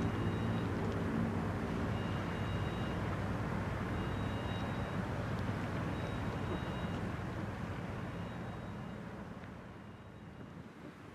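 A steady low rumble and hiss of harbourside background noise that slowly fades. A faint two-tone electronic beep repeats about every two seconds.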